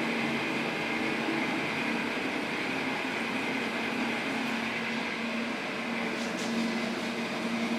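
Steady shop background hum, a constant machine or ventilation drone with one low tone running through it. A couple of faint light clicks come about six seconds in.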